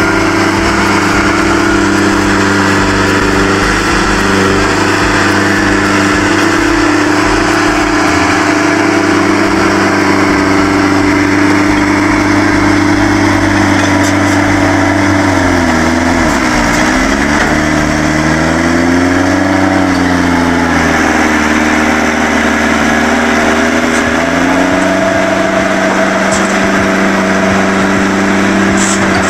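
Diesel engines of a crawler loader and a loaded dump truck running steadily while the loader pushes the truck uphill. About halfway through, one engine's pitch dips sharply and then wavers back up as the load changes.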